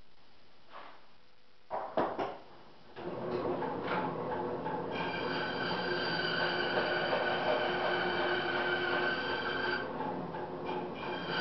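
A few knocks and clunks, then a power tool's motor starts about three seconds in. It runs steadily with a whine that holds on several pitches, briefly dipping near the end.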